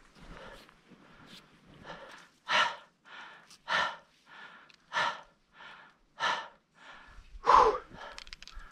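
A climber's heavy, rhythmic breathing close to the microphone: a strong breath about every second and a quarter, with weaker breaths between.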